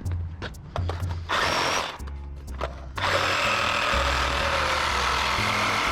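A power tool runs in two bursts, a short one about a second in and a longer one from about three seconds in, with a few clicks before it, over background music with a steady bass line.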